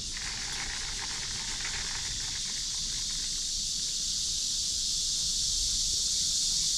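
Insects droning in a steady high-pitched chorus, growing slowly louder.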